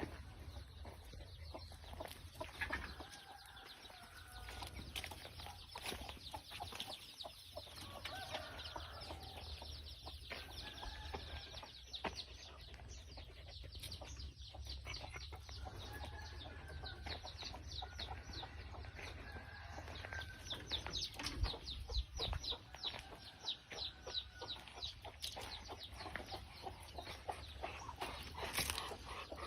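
Chickens clucking on and off, with small birds chirping; through the second half the birds give fast runs of quick, high, falling chirps.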